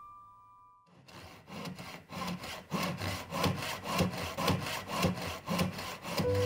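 Hand saw cutting through a wooden board in steady back-and-forth strokes, about three a second, starting about a second in.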